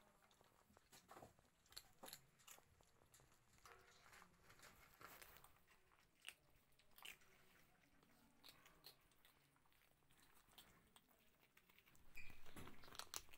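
Kittens crunching and chewing dry kibble from a plate: faint, irregular crunches throughout, louder near the end.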